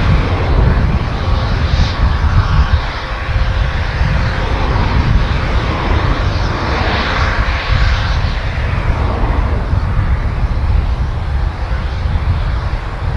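Twin Rolls-Royce BR710 turbofan engines of a Bombardier Global 6000 business jet running at low thrust as it lines up on the runway. A steady jet rush over a deep rumble, with a faint steady whine.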